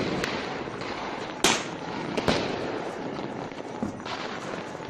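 Diwali firecrackers and fireworks: a sharp bang about a second and a half in and another just over two seconds in, over a steady hiss and crackle of fireworks.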